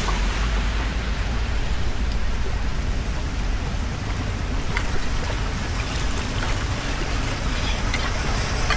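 Steady rush of floodwater draining into a street drain, over a low rumble, with a few faint clicks.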